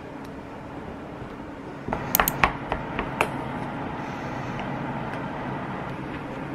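A steady mechanical hum that gets louder about two seconds in, with a quick series of sharp clinks and taps just after.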